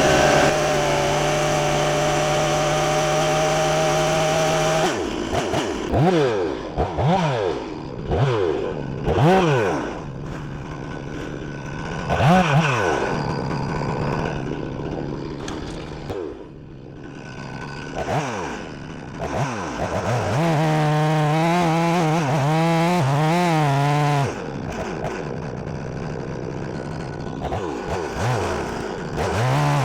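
Stihl MS 460 two-stroke chainsaw being warmed up after starting. It runs steadily for about five seconds, then is revved up and down again and again, is held at wavering high revs for a few seconds past the middle, and is revved again near the end.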